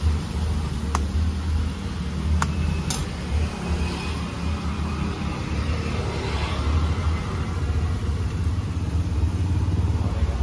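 Three sharp metal clicks in the first three seconds, a spatula striking the cooking pan, over a steady low rumble of road traffic.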